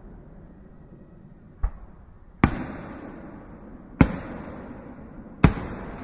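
Fireworks bursting overhead: four sharp bangs, a lighter one followed by three louder ones about a second and a half apart, each trailing off in a fading echo.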